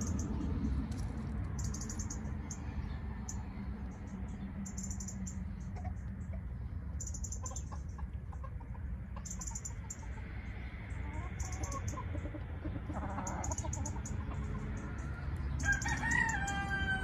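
Chickens with a low rumbling background and a few soft clucks. About a second before the end a rooster begins a crow that is still going as the sound stops.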